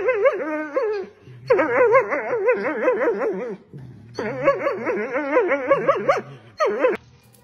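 Dachshund complaining at a bigger dog mouthing her neck, in long warbling howl-like whines whose pitch wobbles up and down. The whines come in three bouts of about two seconds each with short breaks, then a brief final cry.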